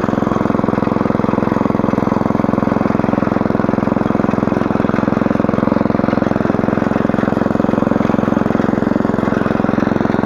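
Small petrol engine of a walk-behind motor hoe running steadily at low throttle, its rotary tines working the soil. The throttle is kept low so the tines turn slowly and don't bury the beet seedlings.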